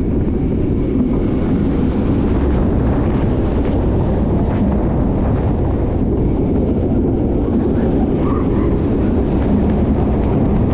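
Wind buffeting the microphone on a moving launched roller coaster, over the steady running noise of the train on the track. A loud, even rush with no break.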